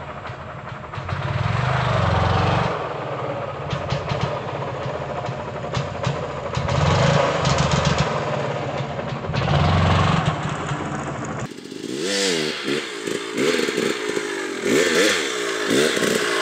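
KTM 300 XC-W single-cylinder two-stroke dirt bike engine revving in surges as the front wheel is lifted into slow wheelies. About two-thirds of the way through, the engine note starts rising and falling quickly with each blip of the throttle.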